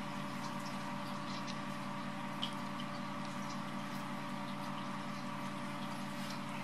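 A steady machine hum with several fixed tones, and a few faint clicks over it, the clearest about two and a half seconds in.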